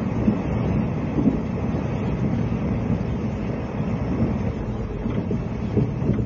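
Running noise heard inside a Series 20 sleeper passenger coach: a steady low rumble of the wheels on the rails, with a few faint knocks.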